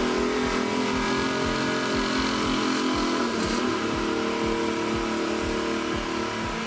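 Logging truck's diesel engine running and revving, under background music with a steady beat.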